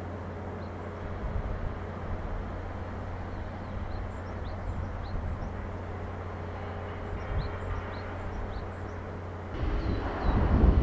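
Distant outdoor ambience over an industrial harbour: a steady low hum with a faint wash of far-off machinery and traffic, and small birds chirping now and then. Near the end a louder, uneven low rumble comes in, gusting like wind on the microphone.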